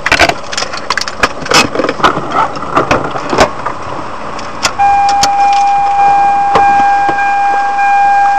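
A rapid, irregular run of sharp knocks and clattering. About halfway in, a vehicle horn starts and holds one steady note.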